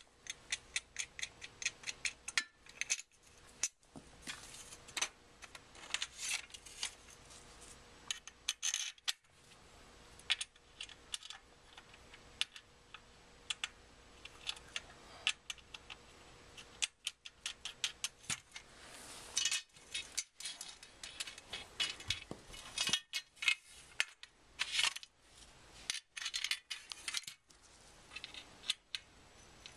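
Irregular clicks and metallic clinks of folding-kayak washboard frame pieces being slid together and fastened with a star bolt, coming more thickly about two-thirds of the way through.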